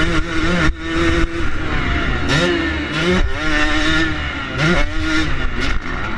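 Yamaha YZ250 two-stroke motocross engine under hard throttle, heard from onboard the bike: its pitch climbs and drops back several times as the rider accelerates and shifts up.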